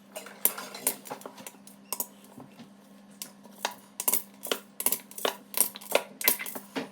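A spoon clinking and tapping against a saucepan in irregular sharp clicks as butter and honey are stirred, over a steady low hum.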